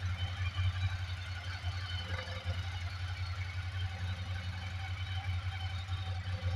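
Ducati Sport 1000S engine idling, an even rattle over a steady low 'dododo' drumming. The owner hears the drumming for a while after each start, and it goes away once the bike has been ridden for a bit. Its cause is unknown to him.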